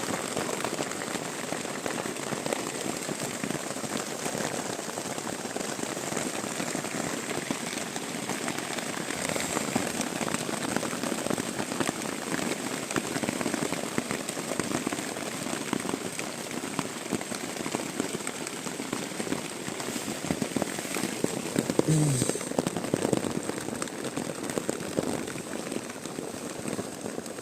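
Downpour falling on an improvised shelter: a dense, steady crackle of raindrops, with a brief louder patch near the end.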